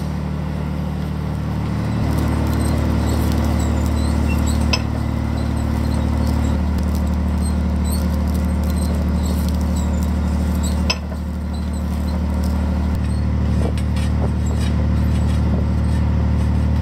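Steady low hum of a fishing boat's diesel engine running, its pitch shifting abruptly a few times, with faint high squeaks and clicks from the rope being handled.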